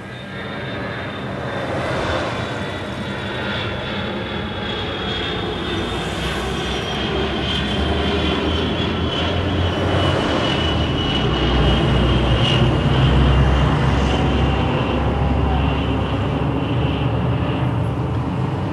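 Steady rumble and road noise of a moving vehicle, with a thin high whine that slowly falls in pitch; the rumble grows louder over the first two-thirds.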